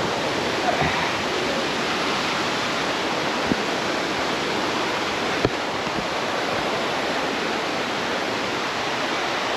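Waterfall and stream in high flow, rushing steadily, with a couple of brief knocks about three and a half and five and a half seconds in.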